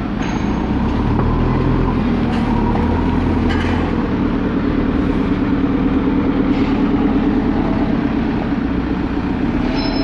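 Diesel engine of a backhoe loader running steadily.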